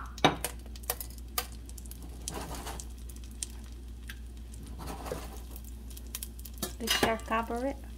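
Melted butter sizzling and spitting in a stainless steel pot around unpopped popcorn kernels, with scattered irregular crackles; the kernels are not popping yet.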